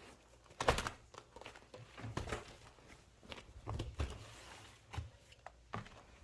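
Irregular knocks and clinks of dishes and a serving utensil as food is served and set out, some with a brief ring.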